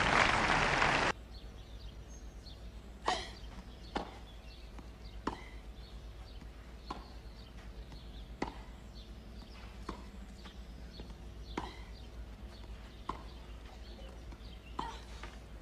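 Crowd applause cut off abruptly about a second in. Then a tennis rally: a racket strikes the ball about every second and a half, each hit a sharp single pop over a steady low hum.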